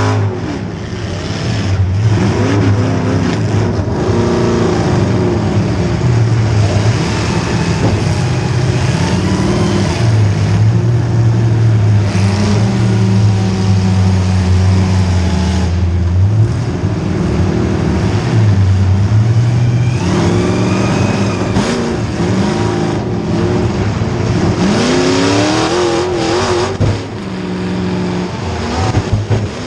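Demolition derby car's small-block Chevy V8 engine revving hard again and again, its pitch climbing and dropping, with occasional knocks and thumps.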